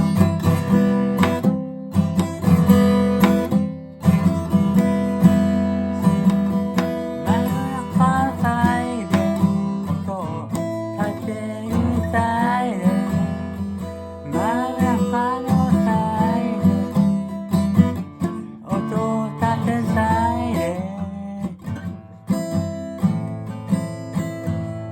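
Acoustic guitar strummed as the instrumental intro to a song. From about eight seconds in, a higher melody line with bending, gliding notes plays over the chords.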